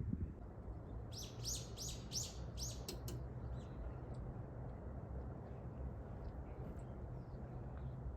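A small bird calling: a quick series of about six sharp chirps, starting about a second in and lasting about two seconds, over a faint steady low rumble.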